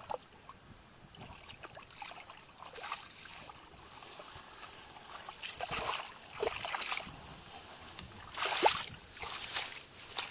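Footsteps wading through shallow muddy water among rice stalks: irregular splashes and swishes of plants against the legs, louder and more frequent in the second half.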